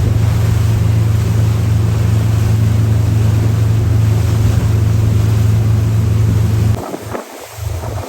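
Motorboat engine running at a steady pitch, heard from on board with a wash of water and wind noise. Near the end the engine sound cuts off suddenly, leaving uneven gusts of wind on the microphone.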